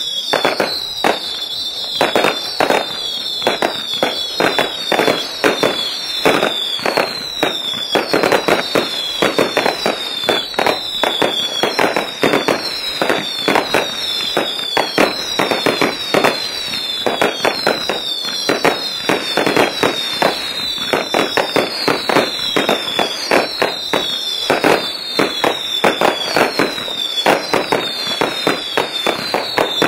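Fireworks display: a dense, continuous run of bangs and crackling bursts, several a second, with high whistles falling in pitch repeating through it.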